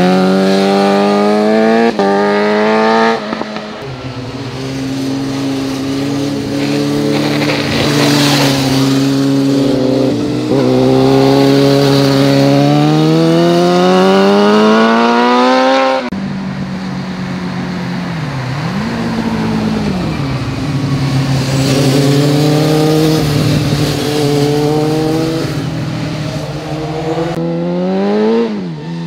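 Sport motorcycles accelerating through hairpin bends one after another, engine pitch climbing with each gear and stepping at the shifts. One engine's note rises steadily for several seconds, then cuts off abruptly about sixteen seconds in. Another engine rises and dips through its gears and climbs sharply, then drops away just at the end as the bike passes.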